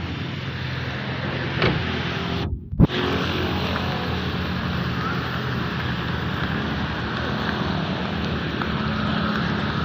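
Motor vehicle engines running with a steady hum under a constant hiss; the sound briefly cuts out about two and a half seconds in and comes back with a knock.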